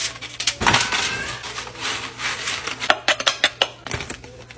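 Crisp tortilla chips rustling and clicking on parchment paper in a metal baking sheet as they are set down by hand, with a run of sharp clicks and taps about three seconds in.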